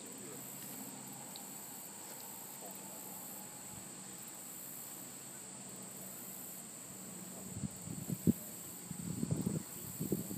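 Steady high chirring of insects, likely crickets, pulsing evenly. From about seven seconds in, irregular low bumps and rumbles are added on top.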